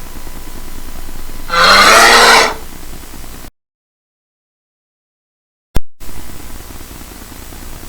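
A bear roars once, loud and pitched, for about a second, over a low rumbling background. About three and a half seconds in, the sound cuts out completely for about two seconds and comes back with a sharp click.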